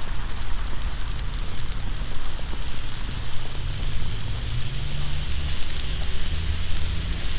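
Wet snow pattering steadily on an umbrella, with a vehicle's engine rising in pitch from about two seconds in as it pulls away in the street.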